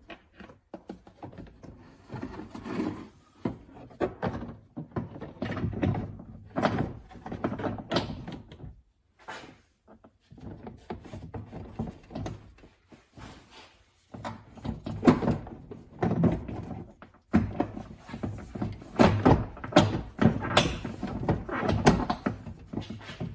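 Irregular knocks, thumps and rattles of a carpet-covered liftgate trim cover being handled, fitted against the open tailgate and lined up with its clips. The knocks come thicker and louder in the second half.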